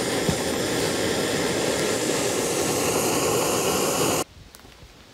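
Backpacking gas-canister stove burning under a pot of water: a loud, steady hiss of the burner flame, which cuts off suddenly about four seconds in, leaving a quiet background with a few faint ticks.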